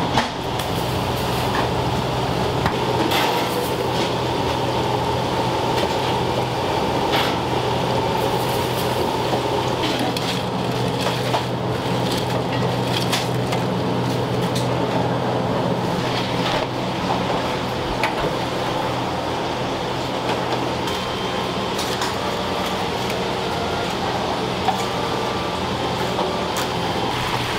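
Steady hum of kitchen ventilation in a commercial kitchen, with scattered light clicks and clatter of utensils.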